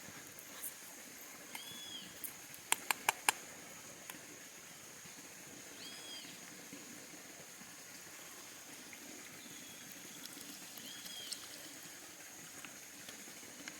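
Outdoor forest ambience: a bird repeating a short arched whistled note every four to five seconds over a steady high-pitched insect drone. Four quick sharp taps come close together about three seconds in.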